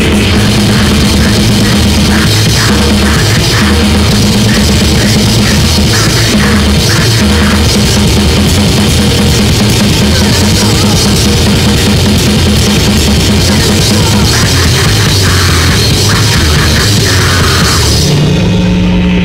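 A three-piece grindcore/powerviolence band plays loud, fast, distorted rock on a drum kit and amplified instruments. The recording is rough, sounding as if the band was taken live in one take with a single microphone in the room. Near the end the band holds a low note.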